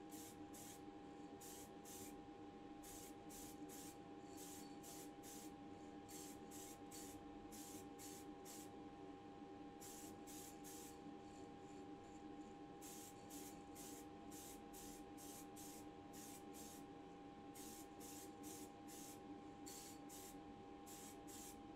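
Aerosol spray can of primer giving many short, faint hissing bursts in quick runs of two to four, as a small model part is sprayed. A steady faint hum lies underneath.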